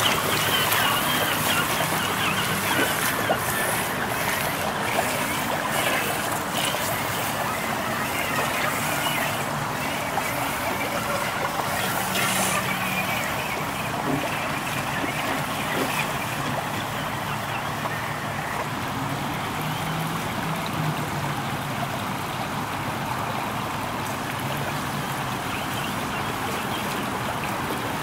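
Water trickling and flowing steadily through a shallow rocky stream as an RC rock crawler wades through it, with a faint low hum that comes and goes.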